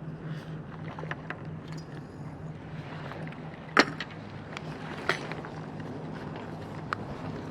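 A steady, low, pulsing engine hum, with a few sharp clicks or knocks over it; the loudest comes about four seconds in.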